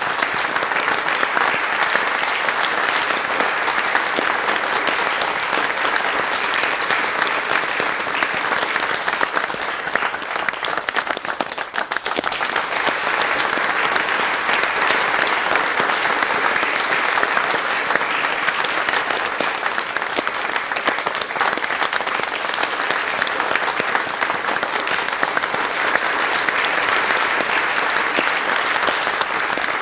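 Audience applause: many people clapping together in a dense, steady patter. It briefly thins about twelve seconds in, then carries on.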